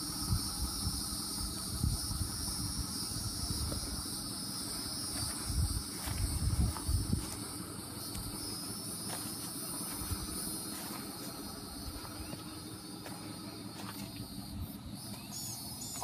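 Steady, unbroken high-pitched drone of a chorus of insects, with uneven low rumbling on the microphone that is strongest in the first half, loudest about six seconds in.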